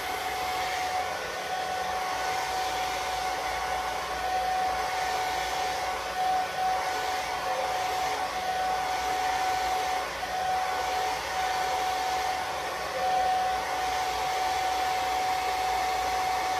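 Handheld hair dryer running steadily at close range, blowing air onto a freshly applied layer of wig glue along the hairline to set it. A constant rushing of air with a steady motor whine that does not change pitch.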